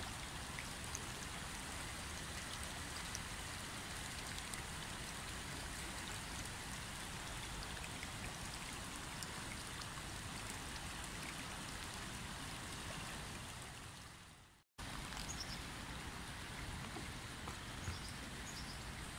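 A woodland stream in flood, its water rushing steadily over and around mossy banks and tree roots. The rush fades and drops out for a moment about three-quarters through, then comes straight back.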